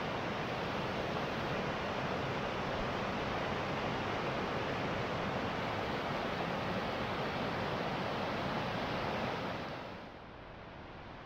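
Rushing water of a mountain stream's cascades and waterfalls, running high after two days of rain: a steady, dense rush that falls quieter about ten seconds in.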